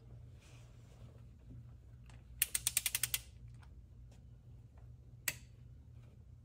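Torque wrench ratcheting: a quick run of about ten clicks as the handle swings back, then a single sharp click a couple of seconds later, the wrench releasing at its 25 ft-lb setting as a head fastener is torqued.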